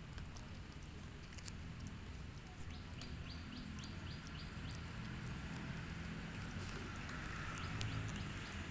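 A bird chirping a quick run of short high notes, about four a second, over scattered faint clicks and a steady low hum.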